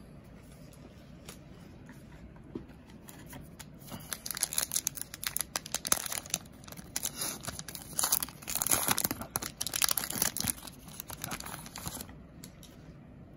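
Wrapper of a 2009 Upper Deck Goudey baseball card pack being torn open and crinkled by hand, in a run of crackling tears starting about four seconds in and stopping shortly before the end.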